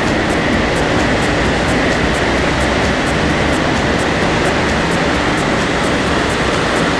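Remapped VW Transporter T5 2.0 TDI running steadily on chassis dynamometer rollers: a loud, even rushing noise with no change in revs, with faint regular ticking high up about four times a second.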